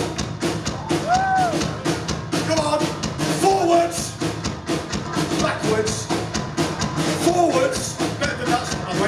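Live thrash metal band playing: electric guitars, bass and drum kit, with a singer's voice over them.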